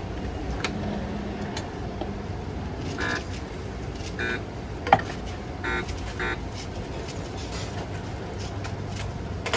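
Steady rumble of street traffic, with several brief short sounds and one sharp knock about five seconds in.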